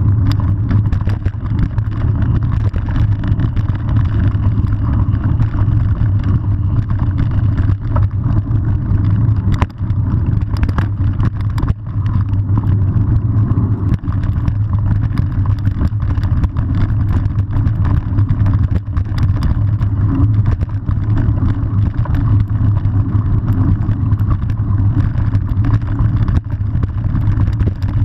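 Steady, loud wind and road rumble on the microphone of a camera riding on a moving mountain bike, with scattered knocks and rattles from bumps in the street.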